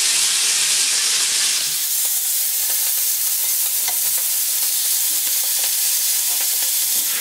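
Marinated chicken wings sizzling in hot oil in a frying pan as they are laid in to pan-fry: a steady, loud hiss, with a faint tap about four seconds in.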